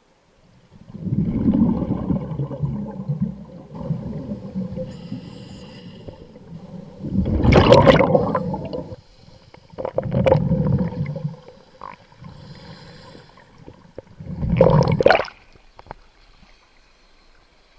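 Scuba diver's exhaled bubbles gurgling out of the regulator in four bursts, heard underwater through the camera housing.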